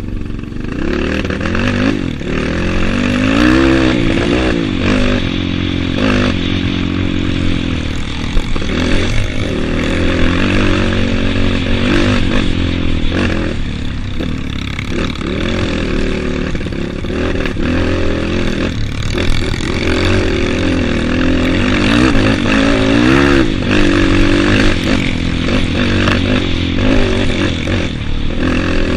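Trail motorcycle engine being ridden along a trail, its pitch repeatedly rising and falling with the throttle, with occasional short knocks and rattles.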